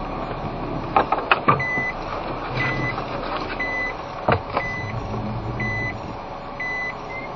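A car's reverse-gear warning beeper sounding a short high beep about once a second as the car backs up to turn around, over steady engine and tyre noise. A few sharp knocks come about a second in and again just past four seconds.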